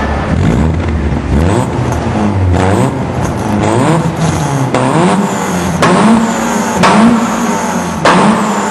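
Volkswagen Polo engine being revved repeatedly, its pitch climbing and dropping about once a second. Three sharp cracks stand out over the engine in the second half.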